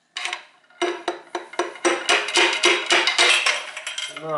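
Rapid series of ringing metal-on-metal taps, about four or five a second, on a long steel bar set against a piston in the engine block: the piston and connecting rod being knocked down out of the cylinder bore.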